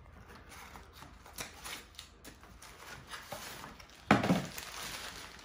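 Cardboard box and folded plastic inflatable being handled and pulled apart, a run of light scraping and rustling, with a louder burst of crinkling and rustling about four seconds in.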